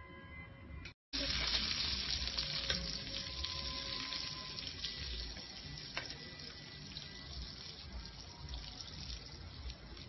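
Butter sizzling in a hot pan, starting abruptly about a second in and slowly dying down, with a few small crackles.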